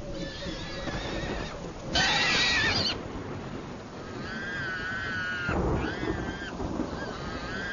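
A horse whinnying again and again: a string of shrill, wavering neighs, the loudest about two seconds in.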